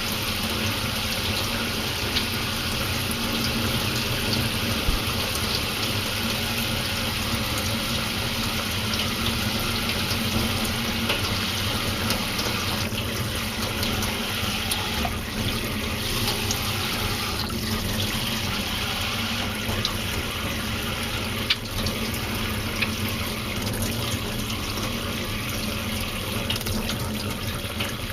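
Steady rushing noise of running water, unbroken throughout.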